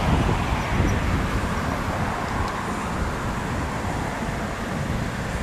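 Floodwater of the swollen Nogoa River rushing past: a steady, even rushing noise.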